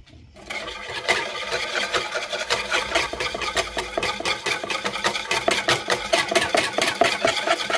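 Wire balloon whisk beating egg and soda water in a mixing bowl: quick, regular strokes with the wires clattering against the sides of the bowl, starting about half a second in.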